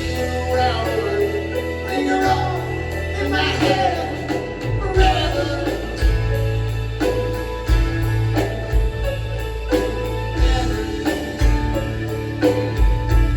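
Rock band playing live, with a sung vocal line over the band mostly in the first few seconds.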